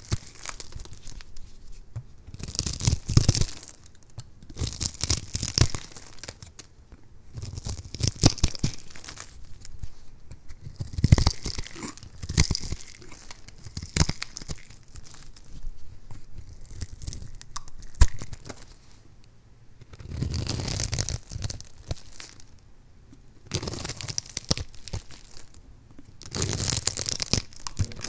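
Flat steel blade slicing through a bar of soap carved into small cubes, with crisp crunching strokes as the cubes snap off and scatter onto a pile of soap bits. The cuts come in bursts every two or three seconds, with a lull in the middle broken by a single sharp click.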